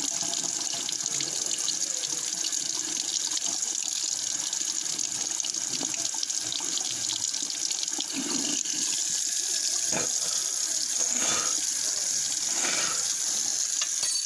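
Kitchen sink faucet running in a steady stream, splashing at a person's mouth and into the sink basin.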